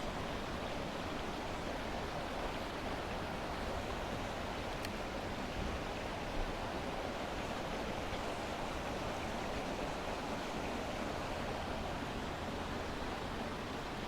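Steady rush of a clear trout creek's flowing water, with a couple of faint ticks near the middle.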